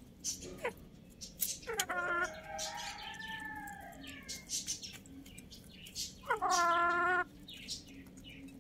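Chickens calling: a long rooster crow that rises, holds and falls away about two seconds in, then a shorter, louder call about six seconds in. Short sharp clicks of beaks pecking at grain run between the calls.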